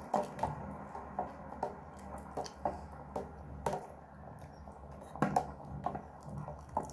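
A plastic spoon stirring soup in a stainless-steel electric kettle, giving irregular light clicks and taps against the pot over a steady low hum. Cornflour slurry is being stirred into the boiling stock to thicken it.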